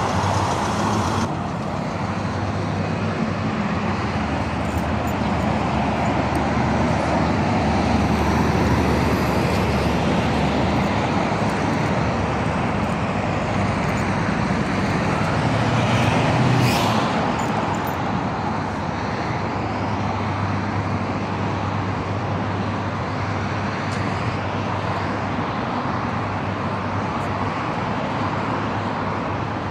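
Steady road traffic on a busy city boulevard: cars and buses passing with a continuous rush of engines and tyres. A brief high squeal comes a little past halfway through.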